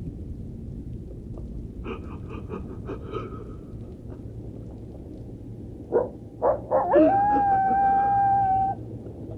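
Wolf howling on a spooky sound-effects tape over a low rumbling background. A few short yips come about six seconds in, then one long, steady howl that stops abruptly near the end.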